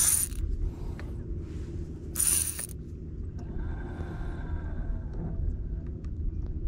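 Okuma spinning reel cranked for about two seconds near the middle, a light gear whir. Before it, two short hissing swishes, one right at the start and one about two seconds in, over a steady low rumble.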